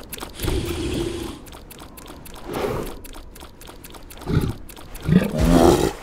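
A cartoon polar bear's deep growling grunts, four short growls a second or two apart, the last one the longest and loudest.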